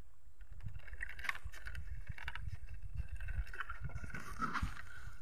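Wind rumbling on the microphone, with scattered creaks and knocks from a bamboo pole walkway being walked on over a fish pond.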